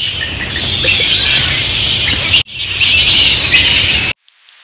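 A flock of bats squeaking and screeching in a dense, high chatter. It has a brief break about halfway through and cuts off suddenly just after four seconds.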